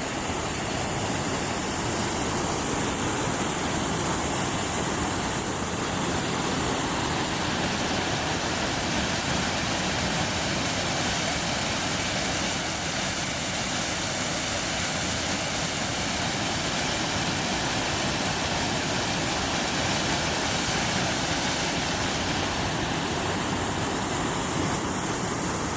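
Water rushing steadily over a mostly frozen waterfall, an even, unbroken hiss of falling water through patches in the ice.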